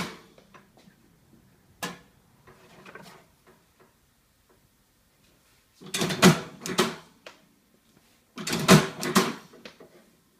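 Nagel Multinak FS electric stapler running two stapling cycles on a thick paper pad, each about a second of mechanical clatter as the heads drive staples through. There is a single sharp click about two seconds in.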